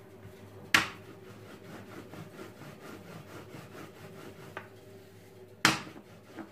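Plastic rolling pin rolling out a round of börek dough on a floured countertop: soft rubbing and rolling, broken by two sharp knocks, about a second in and near the end.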